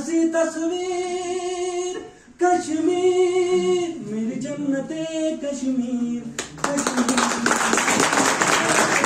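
A man singing unaccompanied, holding long notes with a short break about two seconds in; about six and a half seconds in the song ends and applause breaks out.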